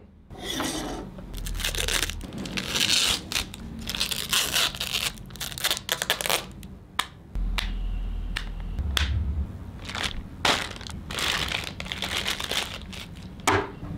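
Thin clear plastic packaging bags crinkling and rustling in irregular bursts as a remote control and a bagged power cord are unwrapped and handled, with a few sharp clicks among them.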